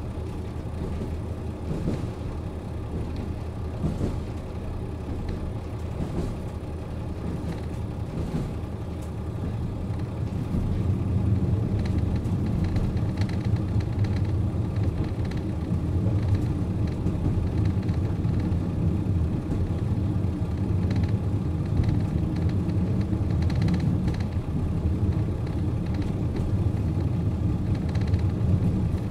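JR Hokkaido KiHa 40 diesel railcar standing still with its diesel engine idling: a steady low hum that grows louder about ten seconds in.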